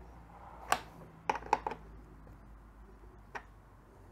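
Sharp metallic clicks of a hand spanner working the nuts that hold a classic Vespa's spare wheel to the frame as they are tightened: one click, then a quick run of three or four, then one more near the end.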